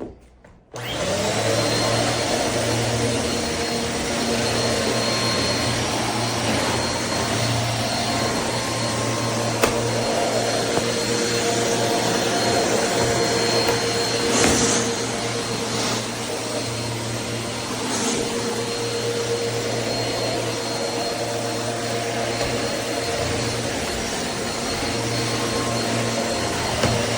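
Eureka AirSpeed bagless upright vacuum cleaner switching on under a second in and then running steadily with a motor whine, with two brief louder bursts partway through.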